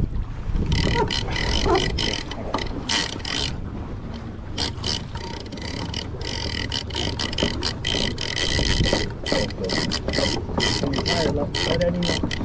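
Penn International 50VISW lever-drag big-game reel being cranked under the load of a hooked bluefin tuna: rapid, irregular clicking of the reel's gears over a steady high whine.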